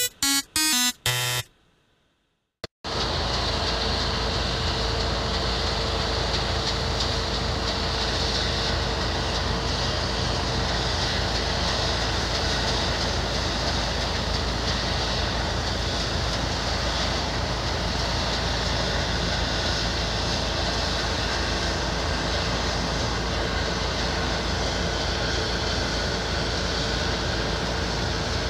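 A short snatch of electronic music cuts off, and after a second of silence a large diesel harvest machine runs steadily and loudly, a constant dense mechanical noise with a deep rumble.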